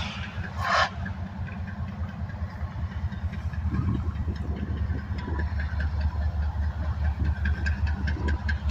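Union Pacific diesel locomotive engine running with a low, rhythmically pulsing rumble and a knock, which the filmer suspects may be piston trouble. A short burst of noise comes about a second in.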